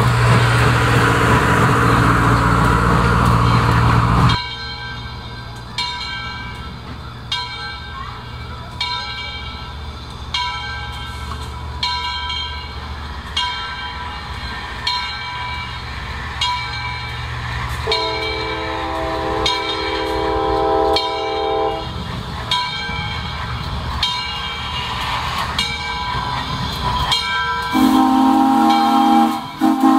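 Southern Railway 630 steam locomotive: a loud hiss of steam for about four seconds, then the engine's bell ringing steadily, about one stroke every second and a half, over a low rumble. The multi-tone steam whistle blows twice, a long blast about two-thirds of the way through and another near the end.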